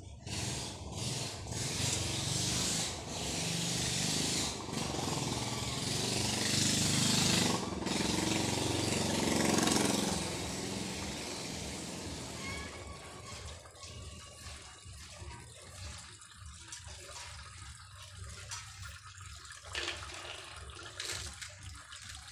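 Water rushing into two clear water filter housings as they refill after a cartridge change. It is loud for about the first ten seconds, then dies down to a quieter, uneven flow as the housings fill.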